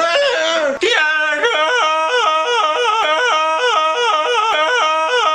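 A voice yodeling, flipping rapidly and regularly back and forth between a low and a high note. It starts just after a brief break about a second in; before that the voice wails in a wavering pitch.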